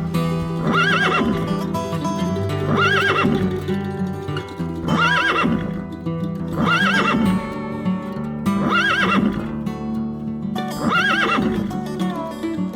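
A short, high whinnying animal call, repeated six times about every two seconds, over steady background music.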